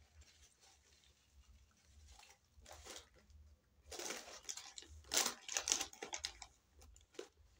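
Paper food wrapping crinkling and rustling as it is pulled open by hand, in short irregular bursts, loudest a little past halfway.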